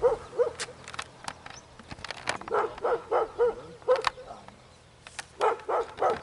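A dog barking in short runs of several quick barks, with pauses between the runs.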